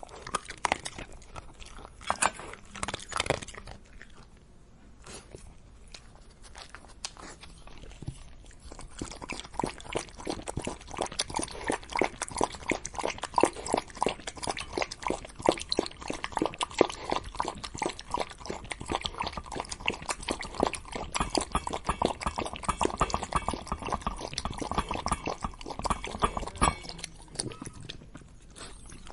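A dog eating and drinking. It crunches dry food with a few sharp bites at the start, then laps water in a long, quick, even run of strokes that stops near the end.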